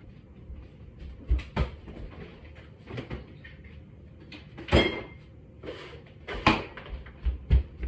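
Refrigerator door being opened and a bottle taken out: a series of separate knocks and thumps, the loudest about five seconds in.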